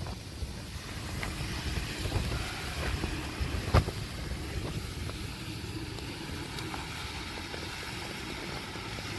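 Wind buffeting the microphone, an uneven low rumble, with a single sharp knock about four seconds in.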